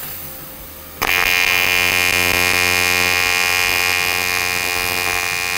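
AC TIG welding arc on aluminum, from an Eastwood TIG 200 LCD inverter welder: the arc lights about a second in and then holds a steady, a little loud buzz as the bead is run.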